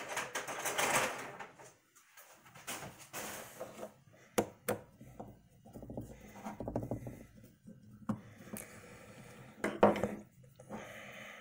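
A screwdriver and a small plastic plug handled on a wooden workbench: scattered clicks and knocks as they are picked up and set down. About six seconds in there is a short rapid rattling as the screwdriver works the plug's screw.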